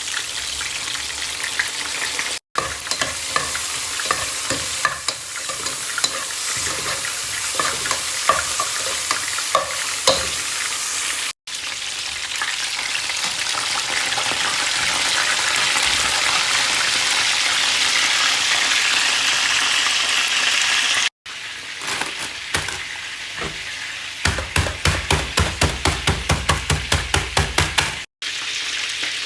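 Food frying and sizzling in a pan while it is stirred, broken by a few short cuts. Near the end there is a rapid, even tapping, about four strokes a second.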